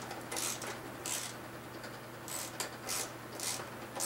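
Hand socket ratchet working a bolt, a short burst of clicks on each back-stroke, repeated several times over a steady low hum.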